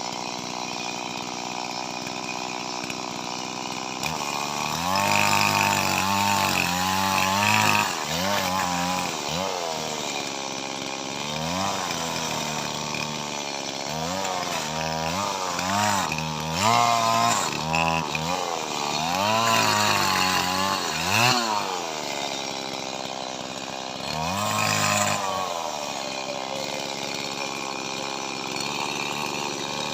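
Small Stihl MS two-stroke chainsaw running steadily, then from about four seconds in repeatedly revving up and dropping in pitch as it cuts through lamtoro (leucaena) wood, settling back to a steady run near the end.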